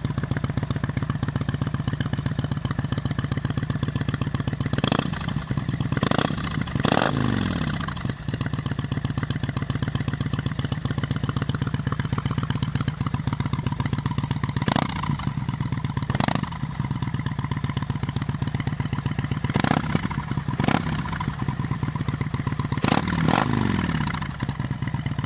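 Kawasaki VN 800 Vulcan's 805 cc V-twin idling steadily through a Remus exhaust, the throttle blipped in short stabs about nine times, mostly in pairs, with the revs falling back to idle after some of them.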